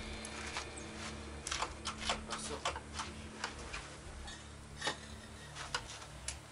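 Electric arc welding: irregular sharp crackles and pops over a steady low hum.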